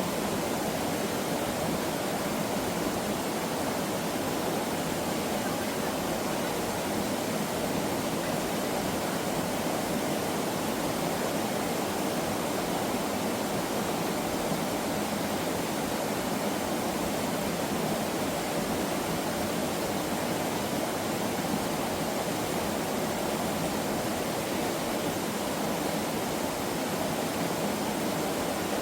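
Mountain valley stream water running steadily over rocks, an even rushing sound without breaks.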